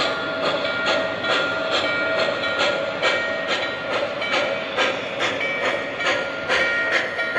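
Model Norfolk & Western J-class No. 611 steam locomotive's sound system chuffing in a steady rhythm, about three chuffs a second, over a steady tone.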